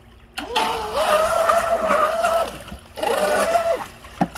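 Brushless electric motor (XT2440) of a Pro Boat Miss Geico 17 RC catamaran whining under throttle, with the hiss of water spray: a run of about two seconds whose pitch rises briefly and then holds steady, then a shorter burst about three seconds in.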